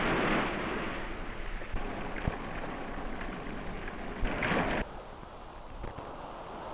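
Rushing noise of wind and breaking sea around racing yachts, surging louder at the start and again about four and a half seconds in. Scattered clicks of an old optical film soundtrack run through it.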